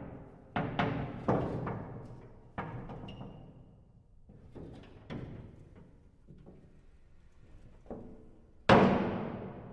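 Heavy iron doors clanging and banging: a run of metal impacts, each ringing and echoing away, several in quick succession at the start, then fewer and fainter ones. One last bang near the end is the loudest and rings on longest.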